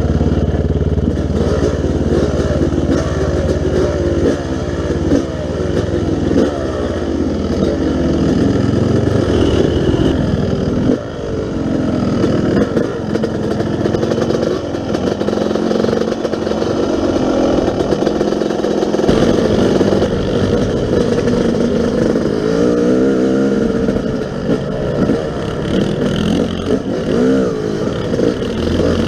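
Yamaha YZ250 two-stroke dirt bike engine, running steadily at first, then revving up and down over and over as the bike is ridden.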